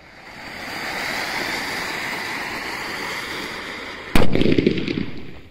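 Ground firework fountain (a 'Ganga Jamuna' cracker) hissing steadily as it sprays sparks. About four seconds in comes a sudden loud bang, the loudest sound here, followed by about a second of crackling before it dies out.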